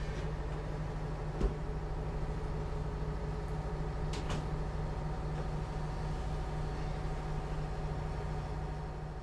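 A motor yacht's engine running with a steady low drone, heard from inside the cabin. There is a single knock about a second and a half in, and a couple of faint clicks around four seconds.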